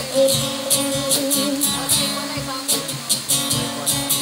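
Live acoustic band: an acoustic guitar strummed over a steady beat on a cajón, with a man singing.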